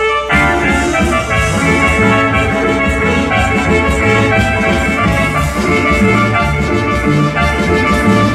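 Dance music with drums and a steady beat, played loud through a stage sound system.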